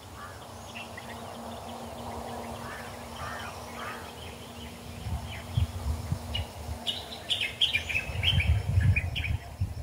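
Wild birds calling with short chirps throughout, then a quick run of calls near the end. Loud low rumbles come in about five seconds in and again near the end.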